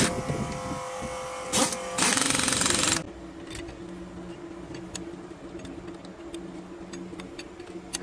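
A power tool run in short loud bursts, a brief one about one and a half seconds in and a longer one ending about three seconds in. After that comes a steady low hum with light metallic clinks.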